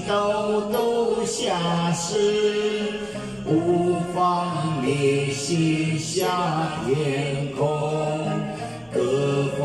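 A man singing a slow, chant-like Chinese Buddhist devotional song into a handheld microphone, holding long notes that step from pitch to pitch.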